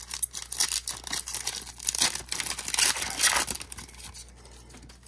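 Wrapper of a 2023 Bowman Platinum baseball card pack crinkling and tearing open, a dense crackle that dies away about four seconds in.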